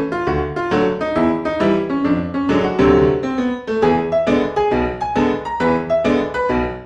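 Background piano music: a steady flow of struck notes with a bass line beneath.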